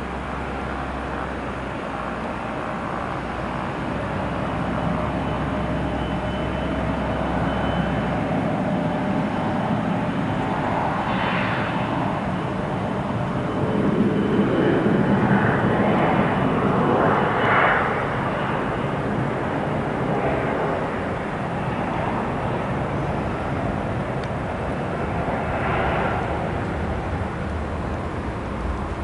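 Jet aircraft engines running with a steady whine, swelling louder about halfway through and then easing off.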